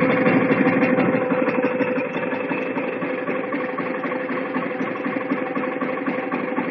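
Iseki Lovely Mini rice transplanter's four-stroke three-cylinder engine running just after a cold start on choke with a little throttle, easing down over the first two seconds to a steady idle.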